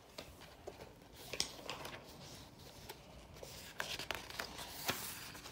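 A hand handling the paper pages of a hardcover picture book: soft rustles and scattered small taps as a page is gripped and turned, with a sharper tap about five seconds in.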